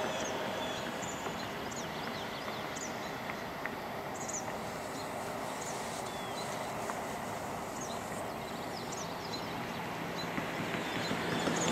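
Steady rushing outdoor ambience with scattered short, high chirps throughout.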